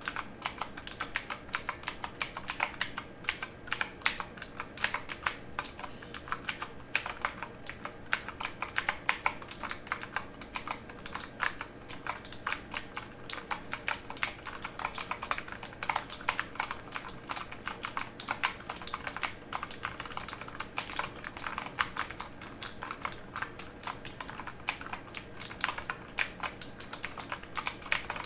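Continuous typing on a mechanical keyboard: rapid, irregular key clicks and clacks, several strokes a second.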